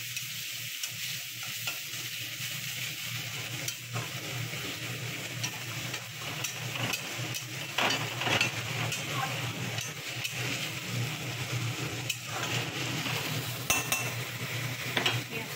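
Ground onion and whole spices frying in oil in a metal kadhai, sizzling steadily while a metal spatula stirs and scrapes against the pan again and again.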